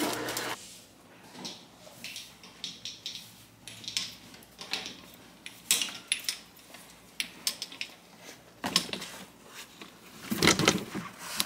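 Golf clubs clinking against each other in a golf bag as it is picked up and carried: scattered light metallic clicks, with a louder clatter and handling noise near the end.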